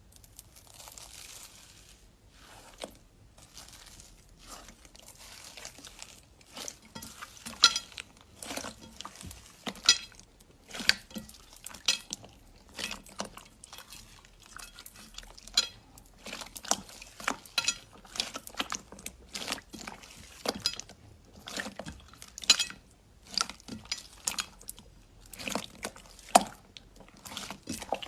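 Slime being squished and pressed by hand, giving a run of sharp pops and clicks, a few a second, that grow louder about six seconds in.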